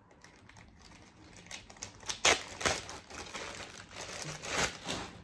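Crinkly packaging rustling and crackling as hands rummage through a cardboard box of items, in a run of bursts that starts about a second and a half in and is loudest a little past two seconds.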